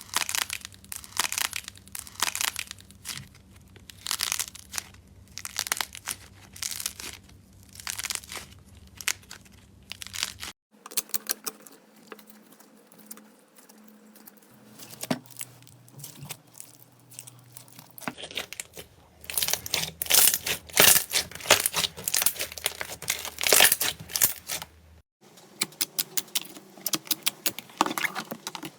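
Hands pressing, stretching and poking slime: quick runs of sticky crackles and pops. The sound changes abruptly three times, as one short clip cuts to the next.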